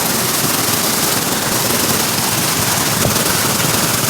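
Steady, loud rush of falling water, an even hiss with no breaks.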